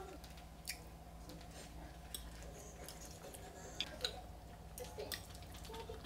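Quiet eating at a table: soft chewing, with a handful of light clicks of chopsticks and a metal spoon against the dishes.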